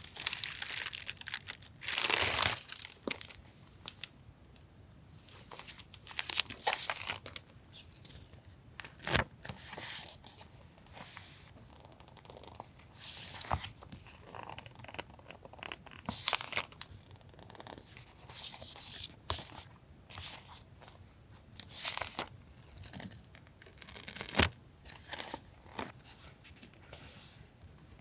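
Paper and stationery packaging being handled: irregular bursts of rustling, crinkling and tearing, with a few sharp taps in between.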